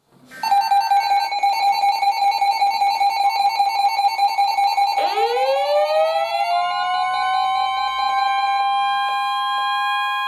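Electronic alert tones: a rapid warbling two-pitch alarm for about five seconds, then a siren sweeping up in pitch and settling into a steady tone.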